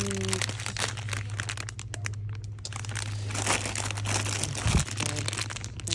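Plastic packaging crinkling and rustling as bagged plastic Easter eggs are handled, over a steady low hum. A low thump comes about three-quarters of the way through.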